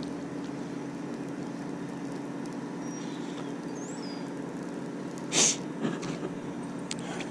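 A steady low motor hum. Over it there is a short bird chirp about three to four seconds in, and a brief loud hiss about five and a half seconds in.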